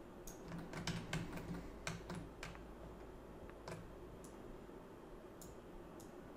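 Faint, scattered clicks of a computer keyboard and mouse, bunched in the first couple of seconds and sparser after, over a faint steady low hum.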